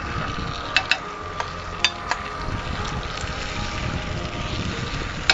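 Pesto-coated zucchini slices sizzling steadily in olive oil in a frying pan, with a few sharp clinks of a metal spoon against the plate and pan in the first couple of seconds.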